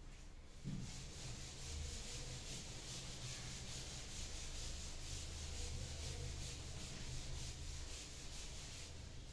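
Chalkboard eraser rubbing back and forth across a chalkboard, wiping off chalk writing in a quick run of repeated scrubbing strokes.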